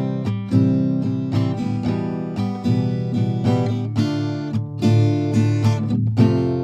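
Background music: an acoustic guitar playing a steady run of plucked and strummed notes.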